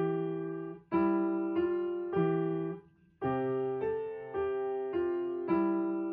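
Background piano music: slow chords, each struck and left to fade, with a brief pause about halfway through.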